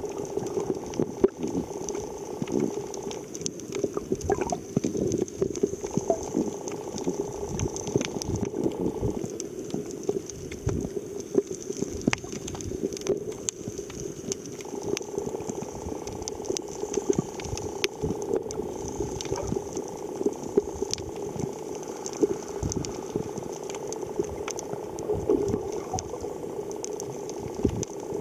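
Underwater sound picked up by a submerged camera: muffled water noise with many small clicks and crackles over a steady hum, part of which drops out for a few seconds now and then.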